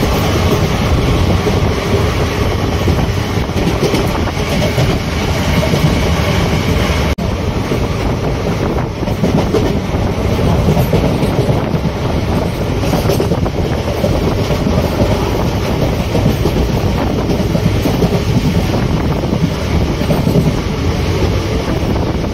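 Passenger train running at speed, heard from on board: a steady, loud rumble of the wheels on the track. It breaks off briefly about seven seconds in, where the recording cuts.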